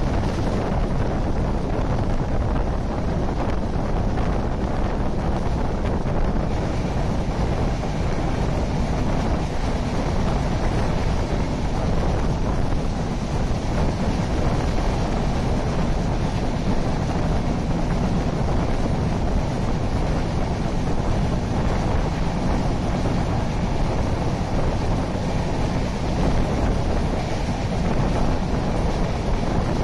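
Indian Railways express train running at speed without stopping, heard from an open coach doorway: a steady rumble of wheels on rails with wind buffeting the microphone.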